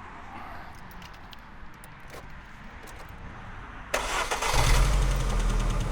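MG ZR's four-cylinder petrol engine cranked about four seconds in and catching within about half a second, then running loudly. It is still misfiring on one cylinder despite freshly fitted spark plugs.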